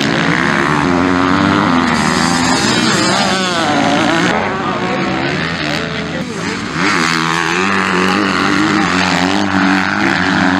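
250cc motocross bikes racing on a dirt track, their engines revving up and down through the corners. One bike's sound gives way to another's about two-thirds of the way through.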